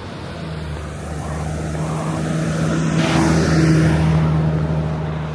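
Engine of a motor vehicle, a steady low hum that swells to its loudest about three and a half seconds in with a rush of noise, then eases off.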